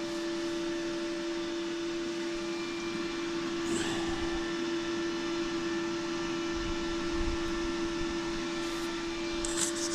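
Cooling fan of a Parkside MIG/flux-core inverter welder running steadily with the machine switched on and idle: a steady hum with an even whoosh, quite loud. A light click about four seconds in.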